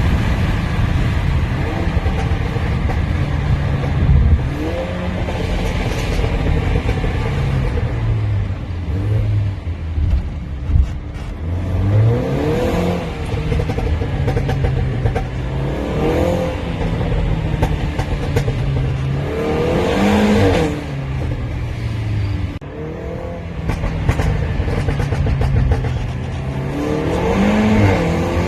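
Stage 1+ tuned Mercedes E350 (2019) engine and exhaust revving up and dropping back about half a dozen times under acceleration, with a few sharp exhaust crackles.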